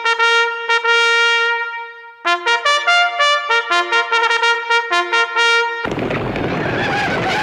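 A solo trumpet plays a quick run of short notes, holds one long note that fades out about two seconds in, then plays another fast run of short notes. Near the end it cuts off abruptly into a steady rushing noise with faint wavering tones.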